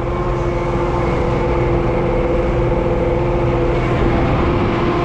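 Tractor engine running hard while pulling a heavy load, heard from inside the cab: a steady drone that holds one pitch.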